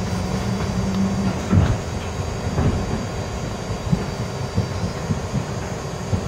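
New York City subway train running along the track, heard from inside the front car: a steady low rumble with a low hum that stops a little over a second in, then irregular clunks from the wheels on the rails.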